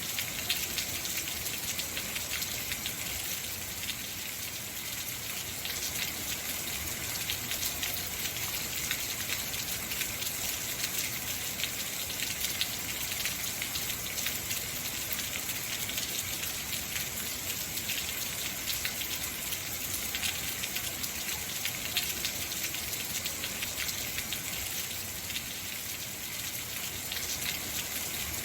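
Heavy rain falling steadily, a dense hiss of drops pattering on surfaces.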